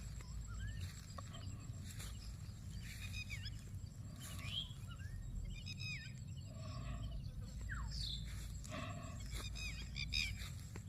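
Birds calling repeatedly in short clusters of falling chirps, every second or two, over a steady low rumble.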